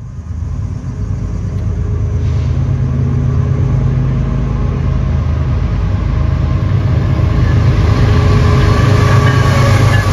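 BNSF diesel locomotives hauling a double-stack container train, their engines running with a deep drone that grows louder over the first few seconds as the train approaches, then holds loud as the locomotives pass close by near the end.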